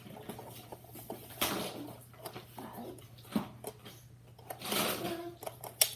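Handling noises as rifle parts are fitted together: scattered clicks, taps and short rustles, a handful of separate strokes, over a faint steady low hum.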